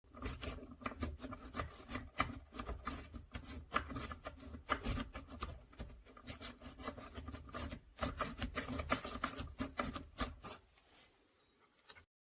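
Metal lock-pick rake scraping and clicking rapidly inside a Master Lock padlock's keyway as it is raked over the pin tumblers. The clicking stops about a second and a half before the end.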